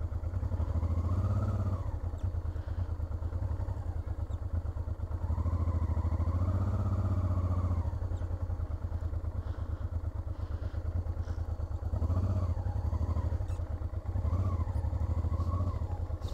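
Honda Transalp 650's V-twin engine running at low speed as the motorcycle rolls slowly over grass, heard from on the bike. The revs rise and fall back briefly several times with the throttle.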